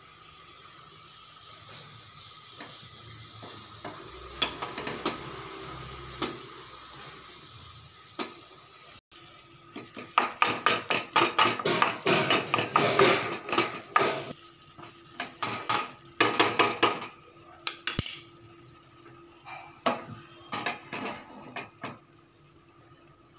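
Wooden spatula stirring and scraping chopped tomatoes, spring onions and spices in a non-stick frying pan, in fast runs of strokes from about ten seconds in, with short pauses between runs. Before that a steady hiss with a few light knocks.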